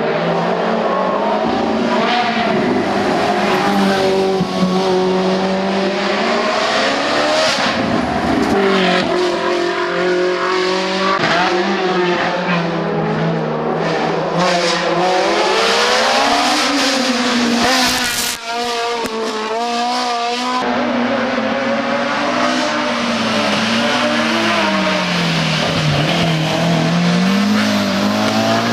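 Hill-climb race car engine at full effort, its pitch rising and falling again and again as it accelerates, shifts and slows for corners.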